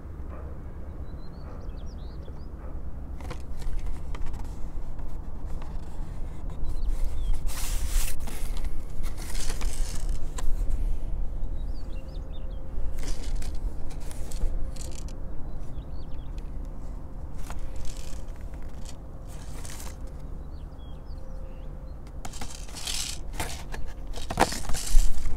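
Cardboard box rustling and scraping as it is handled and turned close to the microphone, over a low wind rumble, with faint bird chirps now and then.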